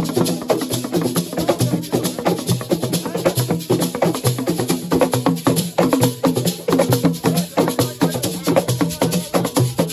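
Assiko music: a percussion ensemble of drums and hand-struck percussion playing a fast, dense rhythm.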